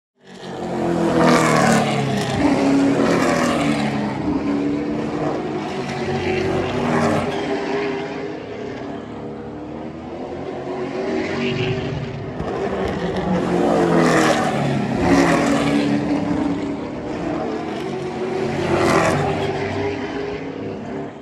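Oval-track stock car engines running at speed, the pitch bending up and down and the sound swelling and fading as cars pass close by several times.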